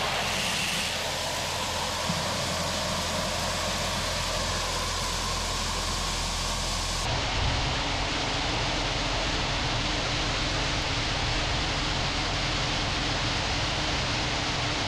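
Steady engine drone with dense mechanical noise, like farm machinery or a vehicle running; about seven seconds in it changes abruptly to a similar steady drone.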